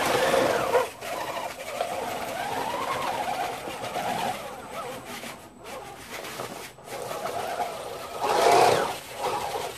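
Whine of a 3D-printed RC snowcat's drive motor and belt transmission running its plastic tracks under a heavy load of about 48 water bottles, the pitch rising and falling with the throttle and surging loudest near the end.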